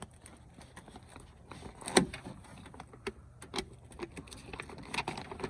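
Scattered clicks and knocks of hand work on a car door's inner parts, with one sharp knock about two seconds in.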